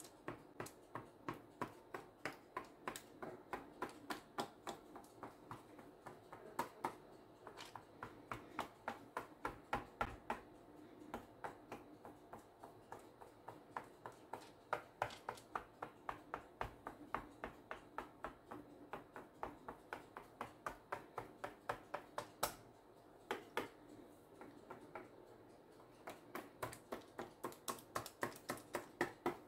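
A fork pricking thin rolled-out cracker dough on baking paper: light, quick taps of the tines through the dough onto the paper and stone counter beneath, about two or three a second, with a few short pauses.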